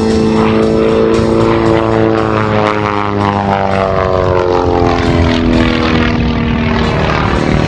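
Pitts S-1S aerobatic biplane's piston engine and propeller running hard, its drone falling steadily in pitch over several seconds, as an aircraft does when it passes by.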